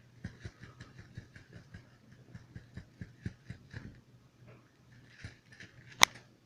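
Kitten playing with a toy: a quick run of light taps and scuffles for about four seconds, then a single sharp click about six seconds in.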